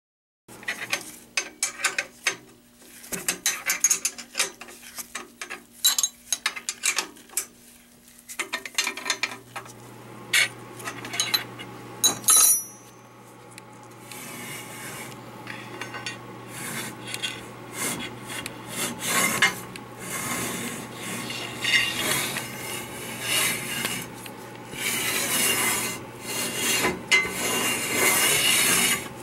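Sharp clinks and knocks of steel parts being handled on a metal lathe. About ten seconds in, the lathe's motor starts a steady hum, and a rasping metal-on-metal scraping builds as the carriage traverses under the homemade sine-bar rifling attachment.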